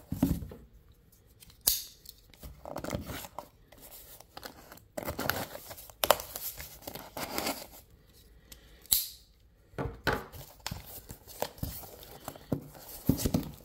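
A taped cardboard shipping box being torn open by hand: tape and cardboard ripping in short, irregular tears, with rustling and handling of the box between them.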